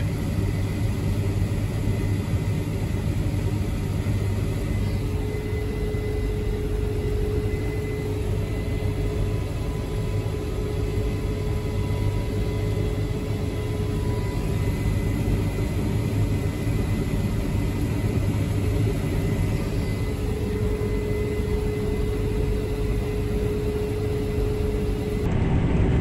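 Case IH 8230 combine harvester running steadily while cutting soybeans: a constant low engine drone with faint steady whines that come and go over it.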